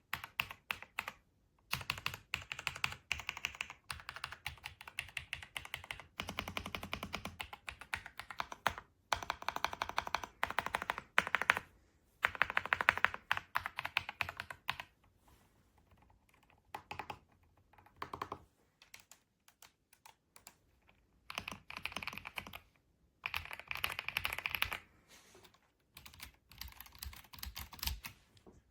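Typing on an RK Royal Kludge M75 mechanical keyboard with red switches: bursts of rapid keystrokes broken by short pauses.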